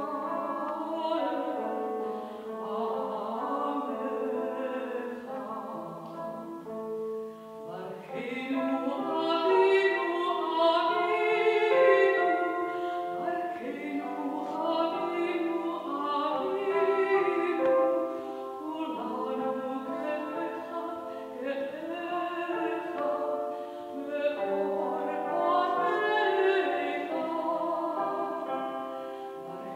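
A woman singing in classical style, accompanied by a concert cimbalom whose hammer-struck strings ring on under the voice.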